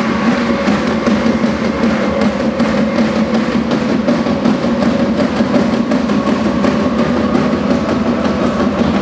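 Music with drums and percussion over a steady held tone.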